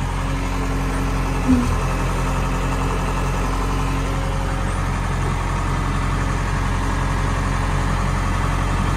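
JCB 3DX backhoe loader's Kirloskar diesel engine idling steadily, heard from the operator's cab, with a short knock about a second and a half in.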